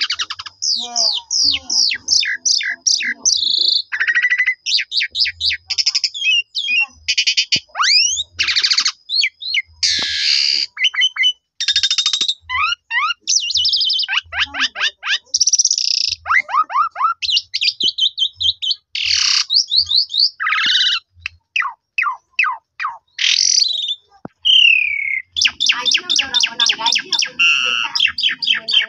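Asian pied myna (jalak suren) singing a long, varied song: fast whistled notes, quick rising and falling glides and buzzy phrases one after another, with a fast rattling run near the end.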